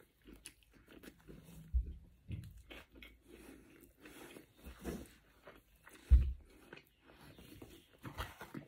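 A person biting into a chicken burger and chewing it close to the microphone: many small wet crunches and mouth clicks. There are two heavier dull thumps, about two seconds in and about six seconds in.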